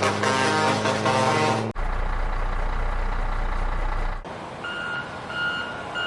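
Music cuts off about two seconds in, giving way to a low truck engine rumble, then a truck's reversing alarm beeping evenly, about one and a half beeps a second.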